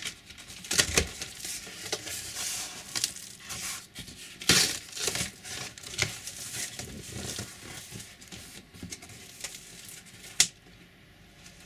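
Cardboard shipping box being opened by hand: irregular rustling and tearing as the flaps are pulled open, and cardboard scraping as the inner box is slid out. A dull thump comes about a second in, and a sharp knock near the end.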